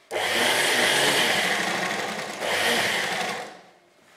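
Electric sewing machine running at speed, stitching a seam. It runs in two stretches with a brief break about two and a half seconds in, then stops shortly before the end.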